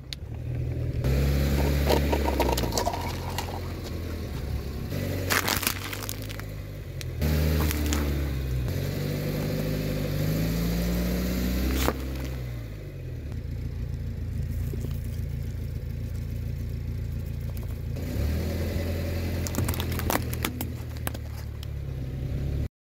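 Car engine running and revving gently as the car creeps forward and back, its pitch rising and falling. Several sharp crunches and snaps come as small objects, among them liquid-filled plastic syringes, are crushed under the front tyre, about 5 and 7 seconds in, again about 12 seconds in and around 20 seconds in. The sound cuts off suddenly just before the end.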